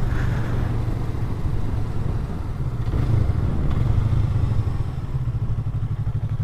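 Yamaha MT-03 parallel-twin motorcycle engine running steadily under way, a low even engine note with a slight pulsing.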